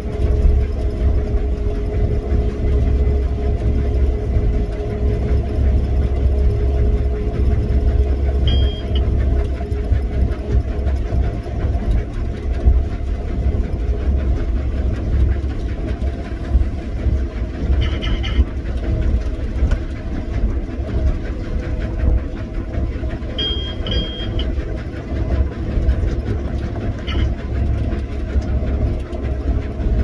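Combine harvester running, heard from inside its cab while unloading grain: a steady low engine drone with a hum. Four short high electronic beeps sound over it, the third a double.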